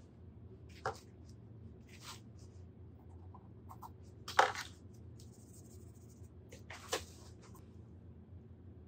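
Short scrapes and taps of a paintbrush working on a canvas textured with straw, and on a paper-plate palette: four or five brief ones, the loudest about halfway through. A low steady hum lies under them.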